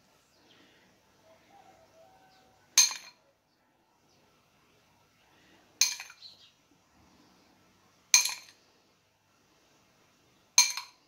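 Metal fork clinking against the rim of a ceramic bowl of beaten egg, four sharp ringing clinks a couple of seconds apart, with faint handling sounds between them.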